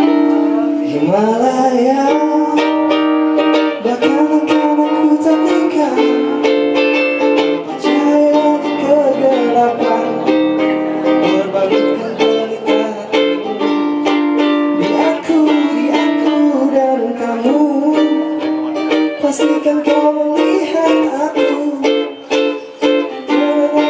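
A man singing an Indonesian love song into a microphone, accompanying himself on a strummed ukulele.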